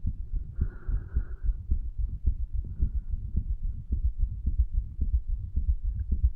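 Human heartbeat picked up at the chest over the tricuspid valve area, placed low to catch more of the heart muscle pumping: a continuous run of low thuds.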